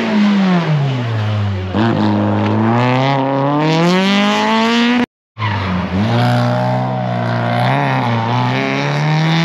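Rally car engine at high revs: the pitch drops for about a second and a half, then climbs steadily as the car accelerates. A short break about five seconds in, then the engine again, its pitch rising and dipping.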